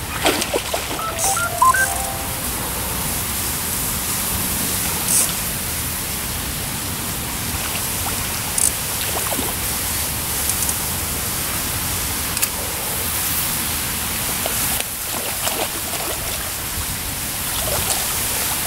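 Steady wind rushing over the microphone, with scattered short knocks and a few splashes as a hooked carp thrashes at the surface.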